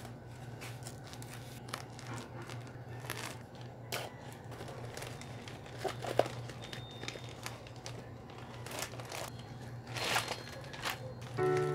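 Plastic courier mailer crinkling and rustling as it is cut open with scissors and a bubble-wrapped parcel is slid out, in many irregular crackles over a low steady hum. Music starts right at the end.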